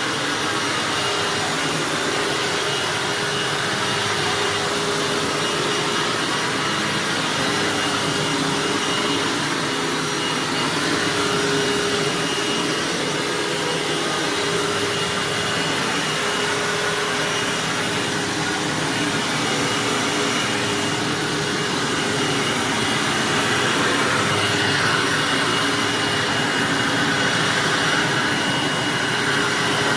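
Hoover WindTunnel bagged self-propelled upright vacuum cleaner running steadily while vacuuming carpet, a steady whine over its rushing airflow.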